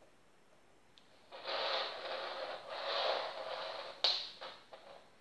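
Hands handling a plastic fidget spinner and loose black rings on a wooden tabletop: a rustling scrape that swells twice over a couple of seconds, then a sharp click about four seconds in, followed by a few lighter clicks.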